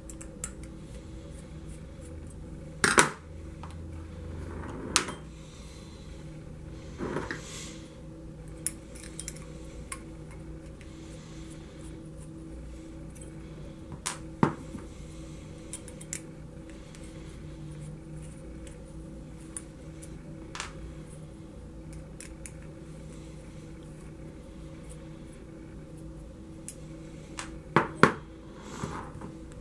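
Hex driver and small screws clicking against the plastic spur gear and slipper clutch of an RC truck as the screws are backed out and set down on a tabletop. A few sharp clicks and taps come seconds apart, the loudest near the end.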